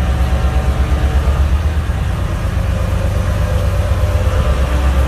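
Twin diesel engines of a BelAZ 75710 mining dump truck running as it rolls slowly forward: a steady, deep engine rumble.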